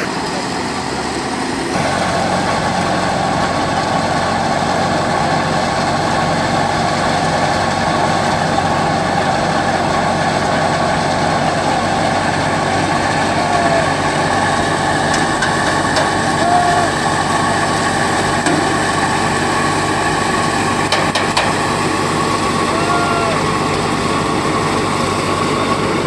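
Tractor-driven wheat thresher running steadily while threshing wheat sheaves: a dense, continuous mechanical din that gets louder about two seconds in.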